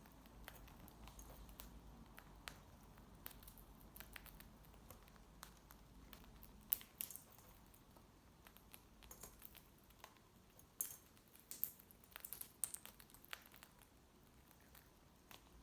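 Cockatiels eating: irregular small clicks and crackles of beaks working at food, busier and louder about two-thirds of the way through.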